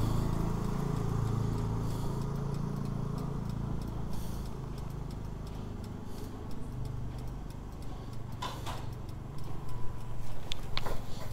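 Two-wheeler engine running at low speed, getting quieter from about halfway through. A series of irregular clicks and knocks comes near the end.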